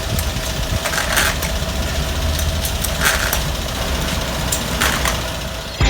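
Carbureted car engine idling steadily, with a few brief hisses over the top.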